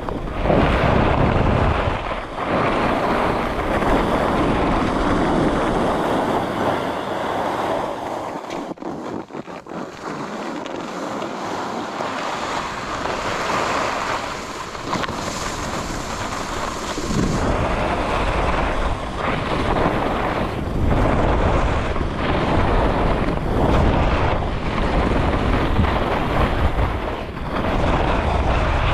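Wind buffeting the microphone of a camera moving fast down a groomed ski slope, with the hiss and scrape of edges sliding over packed snow. The deep wind rumble eases for a few seconds about a third of the way in, then returns.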